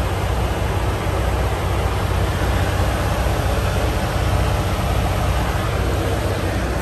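A vehicle engine idling steadily, with a low hum under an even hiss.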